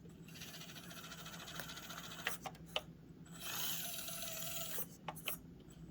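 Small electric motor and gearbox of an Axial SCX24 1/24-scale RC crawler whirring as it crawls over a frame-twister obstacle, louder for a stretch in the second half. A few sharp clicks come from the plastic wheels and chassis knocking on the obstacle.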